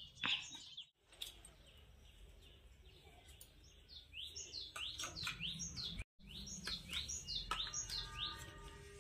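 Birds chirping: a quick run of short chirps, many in a row, starting about four seconds in.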